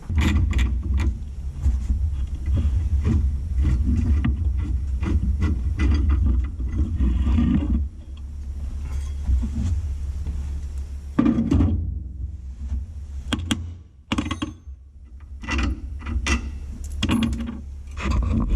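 Hand tools working on metal parts inside a truck cab: irregular clinks, knocks and scraping, over a steady low rumble that drops away about eight seconds in.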